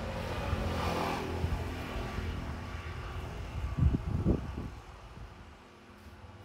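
A motor engine running steadily nearby, with a few low thumps about four seconds in; the engine sound fades away after about five seconds.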